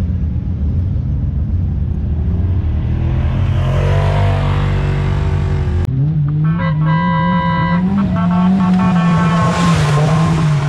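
Off-road race car engines running hard. After a cut about six seconds in, one race car's engine revs with its pitch rising and falling as the car climbs a rocky trail and passes close, kicking up dust.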